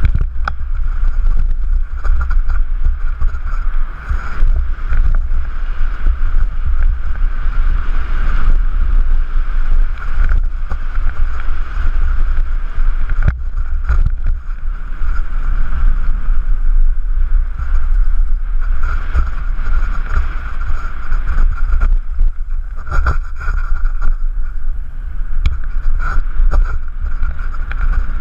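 Wind buffeting the microphone of a helmet-mounted camera during a mountain-bike descent, with continuous tyre noise over dirt and gravel. Scattered knocks and rattles come from the bike hitting bumps.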